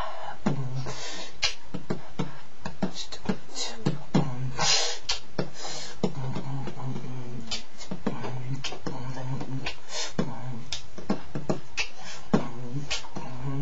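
Beatboxing: quick vocal percussion of sharp clicks and kicks, with a few longer hissing snare sounds and a low hummed bass note under them.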